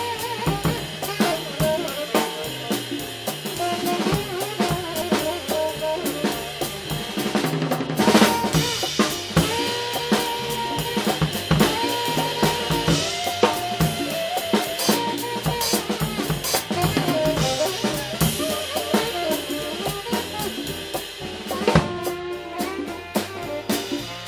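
Live jazz band playing, with the drum kit loudest, close to the microphone: snare, bass drum and cymbals keep time under saxophone and keyboard. A loud drum accent about eight seconds in, and another near the end.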